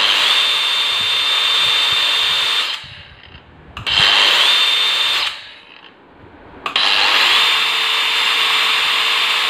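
DeWalt DWE4377 angle grinder running with no disc fitted, switched on three times in short runs at top speed: a loud, steady high motor whine that steps up slightly in pitch just after each start and dies away quickly each time the switch is released.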